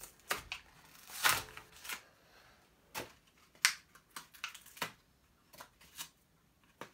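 Plastic and card packaging crinkling and crackling as a squishy toy is unwrapped by hand, in scattered short crackles and taps. The loudest crackles come about a second in and again after about three and a half seconds.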